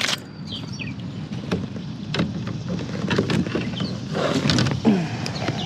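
Scattered knocks and clicks of a paddle and gear being handled against a plastic sit-on-top kayak, over a steady background hiss.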